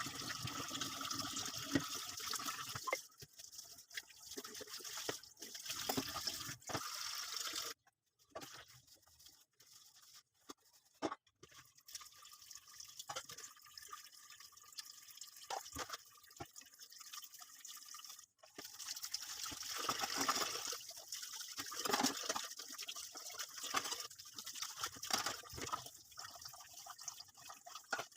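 Water running from a kitchen tap and splashing in the sink, starting and stopping in stretches, with scattered clinks and knocks of items being washed.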